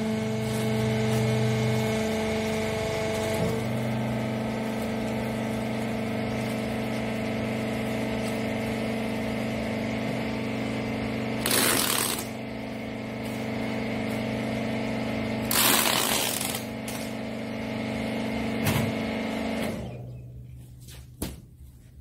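Rag baling press's hydraulic power unit humming steadily, with two short rasping bursts of packing tape being pulled off a roll a little past halfway. The hum stops near the end, then a single knock.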